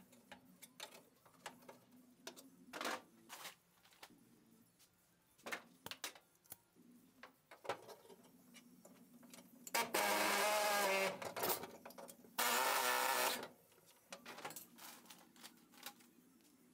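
Clinks and taps of hand tools on sheet metal, then a hand-held pneumatic air tool run in two short bursts of about a second each, the second starting about a second after the first stops.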